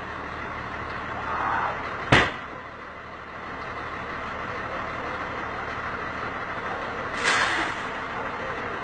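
Idling bus engine and cabin rumble, heard from inside the bus. A single sharp knock comes about two seconds in, and a short rush of noise follows about seven seconds in.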